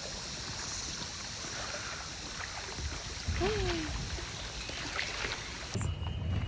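Sea water washing against beach rocks, a steady rushing hiss, with a brief vocal sound about halfway through. Near the end it cuts off abruptly to a low steady hum.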